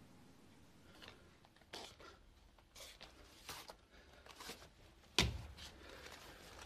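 Soft rustles and shuffles of people moving around, with one louder dull thump about five seconds in.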